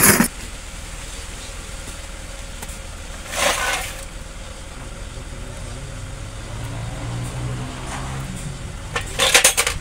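Workshop handling of diesel engine parts over a steady low mechanical hum. A short scraping rustle comes about three and a half seconds in, and a quick run of metallic clinks comes near the end as a piston and connecting rod are handled.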